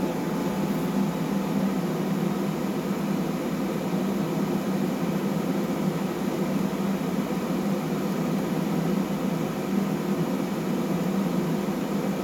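Steady hum of an electric motor running, with an even airy whirr and no change in pitch or level.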